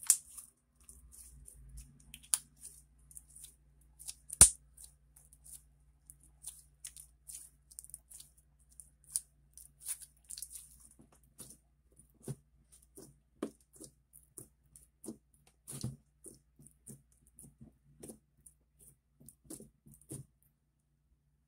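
Glossy slime being squeezed and kneaded by hand, giving irregular sticky clicks and pops, several a second. The sharpest pop comes about four seconds in.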